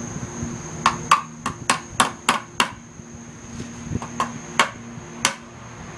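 Hammer blows on a sawhorse being assembled from 2x4s and brackets: a quick run of about six strikes, then after a short pause a few more spaced-out strikes.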